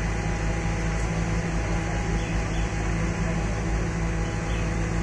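Heavy construction machinery running: a steady, even engine hum that holds one pitch, with no knocks or changes.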